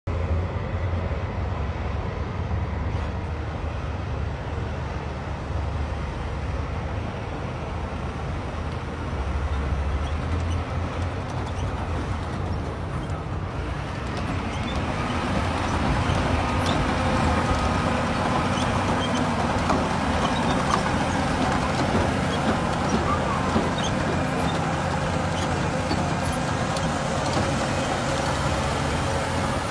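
Paddle scrapers' heavy diesel engines running steadily under load, with a deep low rumble. The noise grows louder and harsher from about halfway through.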